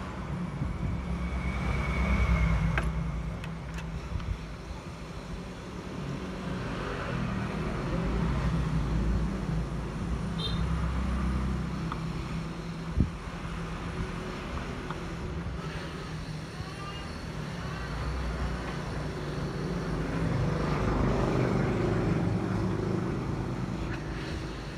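Road traffic rumbling past, swelling and fading as vehicles go by, with a short high beep about two seconds in and a single sharp click near the middle.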